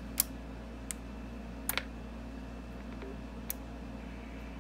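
Sharp clicks as a Xiegu G90 HF transceiver is switched on: one loud click just after the start, then a single click, a quick double click and one more near the middle, over a steady low hum.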